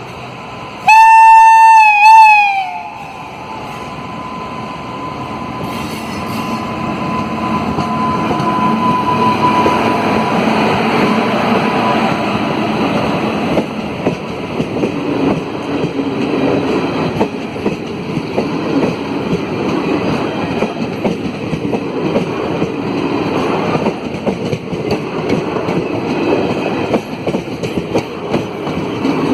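WAP-5 electric locomotive horn sounding two loud blasts about a second in, the second one wavering in pitch. An express train then passes, its wheels clattering over the rail joints with a steady rumble that grows louder and keeps on.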